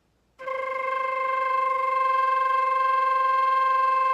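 Transverse flute sounding a single sustained C, played flutter-tongued (frulato), starting about half a second in and held steadily.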